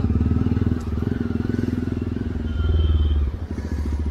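Jawa motorcycle engine running while riding, pulsing steadily; it gets louder for a moment about two and a half seconds in, then eases off suddenly.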